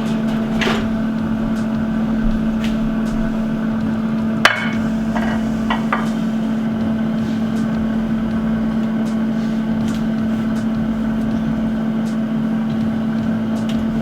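Air fryer running with a steady, even hum. A few light kitchen clicks and knocks come over it, the sharpest about four and a half seconds in.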